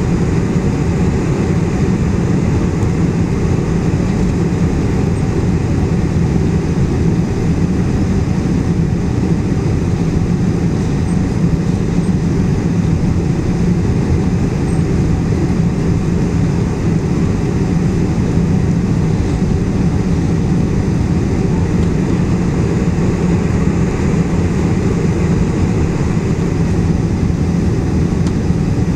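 Boeing 747-400 airliner on approach to land: its four turbofan engines and the rushing air give one steady, loud, low drone that does not change.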